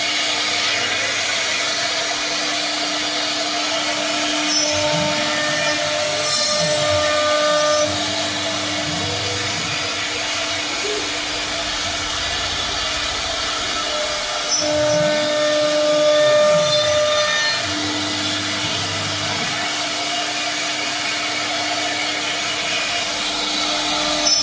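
CNC machine running: a steady motor tone with machining noise, and a pattern of rising and falling pitches that recurs about every ten seconds as the machine repeats its moves.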